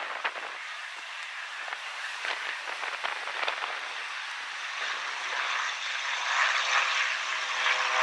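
Cessna 182 single-engine propeller plane climbing out at takeoff power. Its engine and propeller sound grows louder as it passes close by, with a steady hum of tones coming through in the second half.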